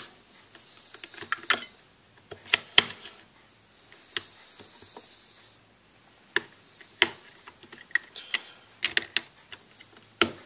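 Two batteries clicking and knocking into the plastic battery compartment of a Kensington Presenter Expert remote, then the battery cover pressed shut: a string of irregular sharp clicks and taps.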